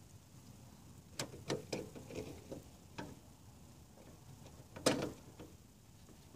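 Circuit breakers being handled by a gloved hand in an Eaton breaker panel: a string of small plastic-and-metal clicks and knocks, with the loudest, sharpest click just before five seconds in.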